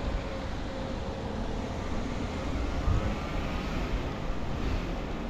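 Wind rumbling on the microphone over the sound of a passing motor vehicle, with a faint whine gliding in pitch in the middle.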